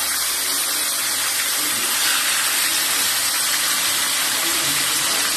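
Whole tilapia frying in hot oil in a pan: a steady, even sizzle that swells slightly about two seconds in.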